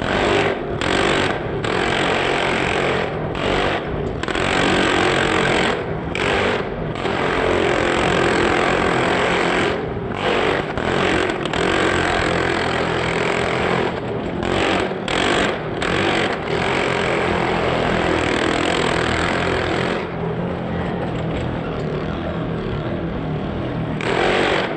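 Small motorcycle engine running hard at high revs as it rides around the wooden wall of a Well of Death drum, the note dipping briefly every second or so. About four seconds before the end it turns duller and eases off, then comes back loud just before the end.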